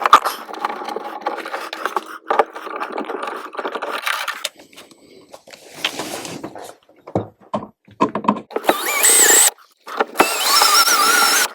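A screwdriver turning the screws of an electrical outlet and its cover plate: scraping and clicking, then two squeaky grinding stretches near the end as the screws turn.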